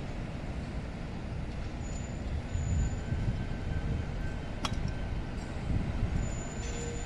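A steady low rumble of outdoor background noise, with a faint high whine through the middle and a single sharp click about four and a half seconds in.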